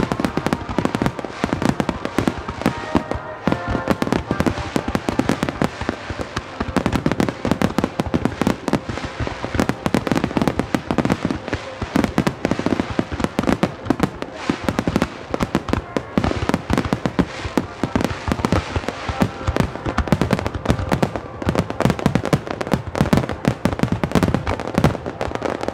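Fireworks display at full barrage: aerial shells bursting in a dense, unbroken run, several bangs a second with no pause.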